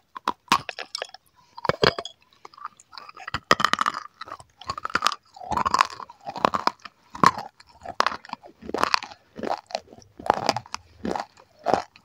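Close-miked mouth biting into and chewing small, dry, crunchy cup-shaped pieces ('small pots'): two sharp bites in the first two seconds, then a steady run of crunches about two a second.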